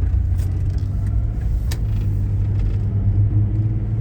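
Low, steady rumbling drone from a car's drivetrain while driving, heard inside the cabin: the noise the owner suspects comes from the differential spider gears.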